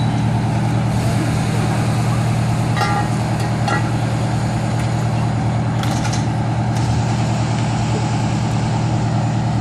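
Fire engine's engine running steadily with an even low hum, with a few brief knocks and clatters about six seconds in.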